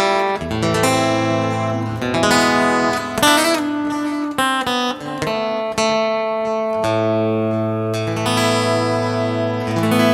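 Thinline acoustic-electric guitar played through a multi-effects unit with its equalizer boosting the highs. It plays a lead passage of quick picked single notes, then held notes over ringing chords with a sustained bass note.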